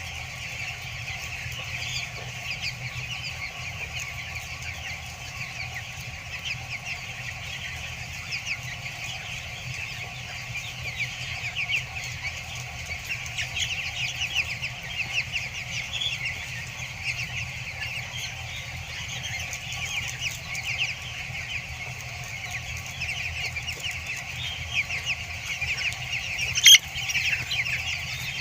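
A large flock of broiler chicks peeping continuously in many overlapping short chirps, over a steady low hum, with one sharp click near the end.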